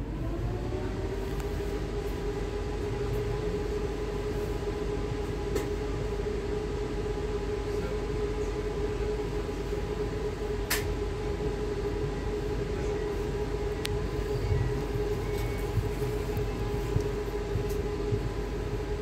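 Siemens Desiro RUS (ES2G Lastochka) electric train running, with a steady rumble of wheels on rail under an electrical whine. The whine rises in pitch in the first second, then holds level. A single sharp click sounds about halfway through.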